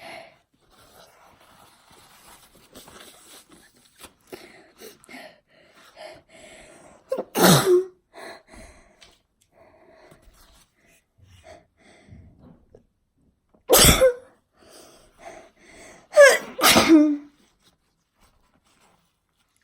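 A woman's forced sneezes. There is one about seven and a half seconds in and another about fourteen seconds in, then two in quick succession near the end.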